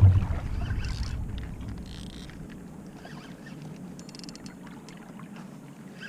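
Water sloshing and splashing around a kayak, with small knocks and clicks against the hull. A sharp knock comes right at the start, and a low rumble drops away after about two and a half seconds.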